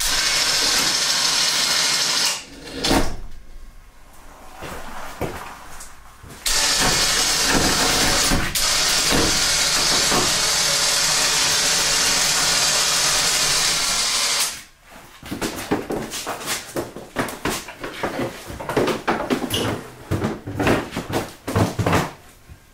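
A shop power tool running with a loud, steady hiss in two long stretches, the second starting suddenly a few seconds in and stopping about two-thirds of the way through, followed by a run of irregular clicks and knocks.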